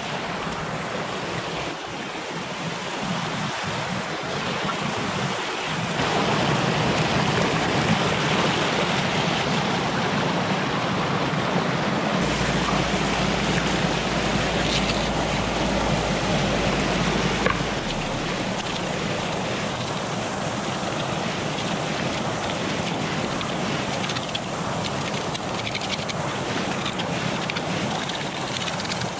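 Steady rushing of a small mountain stream cascading over rocks close by, growing louder about six seconds in. A low rumble joins it for several seconds in the middle.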